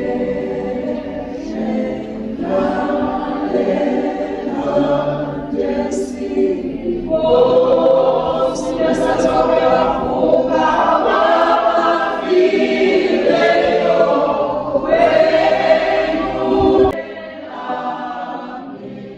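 Choir of many voices singing together, fading out near the end.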